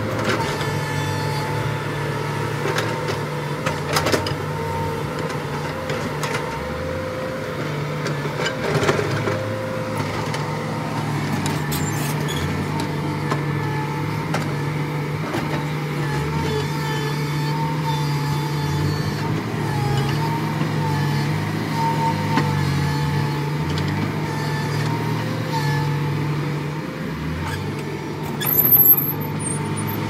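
JCB tracked excavator's diesel engine running steadily under digging load, with a steady hydraulic whine, while the bucket cuts and scrapes the hillside soil, and a few knocks along the way. A brief, loud, high-pitched hiss comes near the end.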